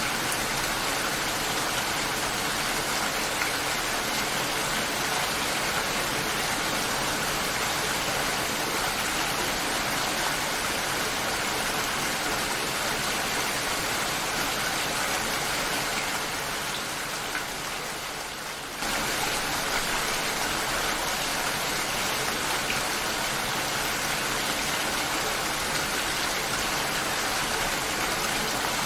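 Rain falling steadily, an even wash of drops. About two-thirds of the way through it fades a little for a couple of seconds, then cuts back in suddenly at full level.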